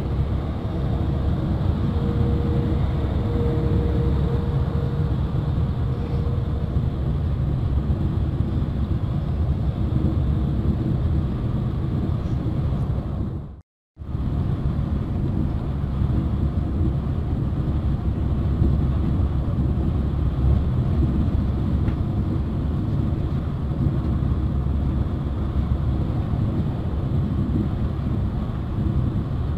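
Steady low rumble of engine and road noise heard from inside a vehicle cruising on a highway. The sound cuts out completely for a fraction of a second about halfway through.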